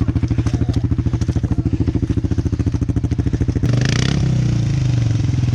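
ATV (quad) engine idling with an even, rapid chugging beat, then throttled up about two-thirds of the way in to a steadier, louder note, with a brief hiss at the moment it picks up.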